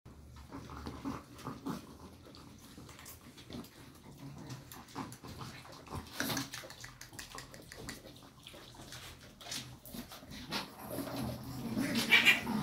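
Small dogs, chihuahuas, moving about on their fluffy cushions, with scattered soft clicks and rustles that grow louder near the end.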